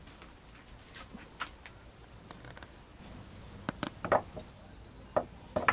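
Objects being handled on a wooden workbench: scattered light knocks and clatters, sparse at first, with a few sharper ones in the second half.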